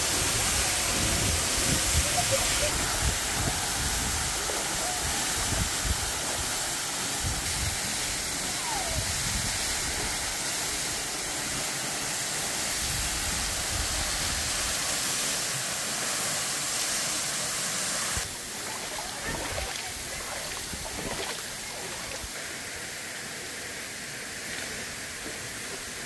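Steady rushing of a waterfall and a shallow rocky river flowing, with uneven low rumbling through the first half. The sound steps down a little about 18 seconds in, at a cut to another shot.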